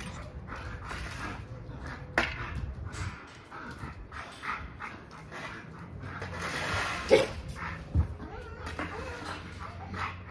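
American bully dogs whimpering, yipping and barking, with a few sharp knocks about two seconds in and near the end.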